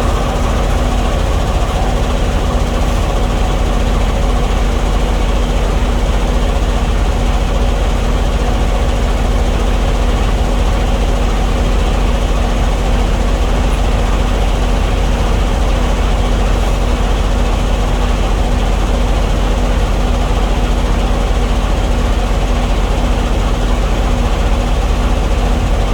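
Diesel engine running steadily at idle, an even hum with a constant low drone.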